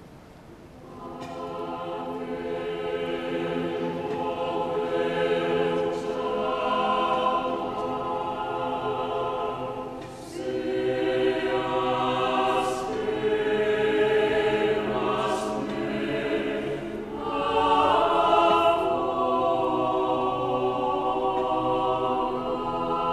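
Choir singing a slow liturgical piece in long held chords. It comes in about a second in and pauses briefly for breath twice, near the middle and again later.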